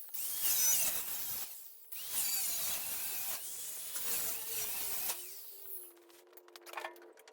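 Tool noise during uncrating, in two long bursts: one of about a second and a half, then one of about three seconds with a squeaky, whining edge. After that it goes quieter, with a few faint clicks near the end.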